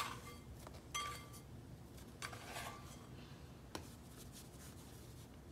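Dough scraper scraping and knocking against a wooden cutting board while dough is gathered into a ball, a few short scrapes and taps spread apart.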